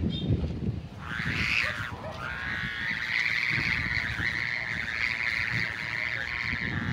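Noisy kite's hummer buzzing in the wind overhead: a buzzing drone starts about a second in, swings up and back down in pitch, then holds steady. Wind rumbles on the microphone underneath.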